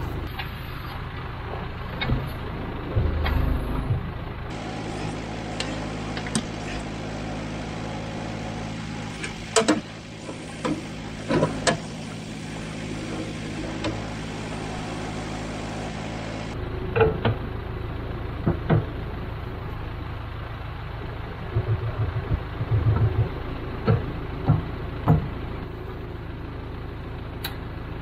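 Case 580K backhoe's diesel engine running steadily, with a steadier humming stretch in the middle while the boom is worked from the seat. Sharp metallic clanks and knocks come and go from the buckets and pins being swapped.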